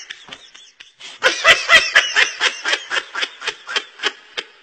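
Young monkey being tickled, giving a fast run of short laugh-like squeals, about six a second, starting about a second in.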